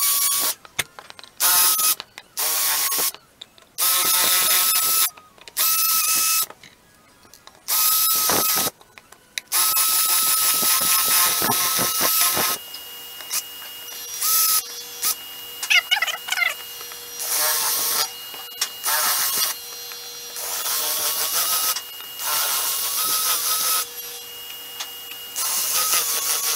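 Ridgid power drill with a quarter-inch bit drilling out metal rivets from a plastic ATV fender, the motor whining in many short trigger bursts that start and stop, with one longer run about ten seconds in.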